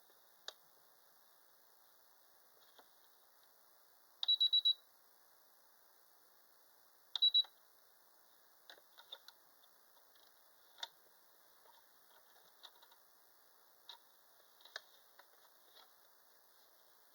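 Computerized sewing machine beeping: a quick run of four high beeps about four seconds in, then two more about three seconds later, amid scattered light clicks. No motor is heard running: the machine is not sewing.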